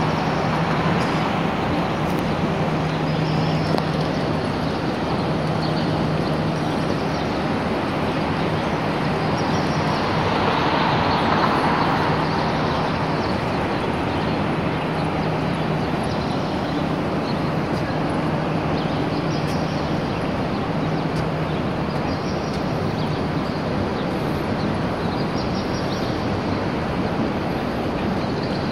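Steady outdoor background noise: an even rushing hiss with a faint low hum that comes and goes, swelling slightly about a third of the way in.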